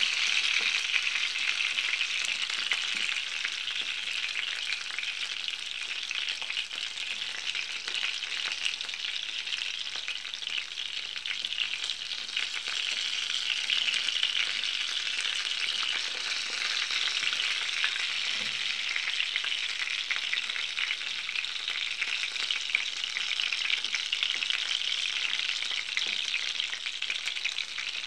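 Hot oil sizzling steadily with a dense fine crackle around meat-filled pirozhki pan-frying.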